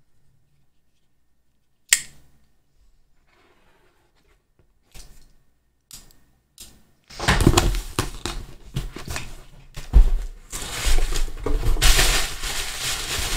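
A cardboard shipping box being cut and torn open: a sharp click about two seconds in and a few faint taps, then from about halfway a continuous scraping and tearing of tape and cardboard with knocks against the box.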